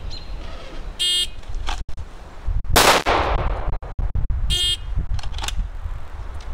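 An electronic shot timer beeps to start, and about 1.8 seconds later comes a single Glock 19 pistol shot, the loudest sound: a timed draw-and-fire. A second short timer beep follows about a second and a half after the shot.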